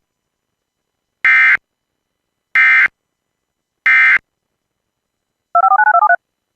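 Emergency Alert System end-of-message signal: three short bursts of warbling digital data tones, about a second and a quarter apart, marking the end of the warning. They are followed near the end by a fast run of about eight touch-tone (DTMF) beeps.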